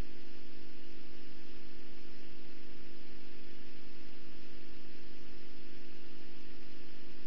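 Steady electrical hum with hiss in the recording, unchanging throughout, with no other sound over it.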